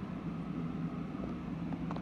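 Steady low hum with faint background noise, no distinct events.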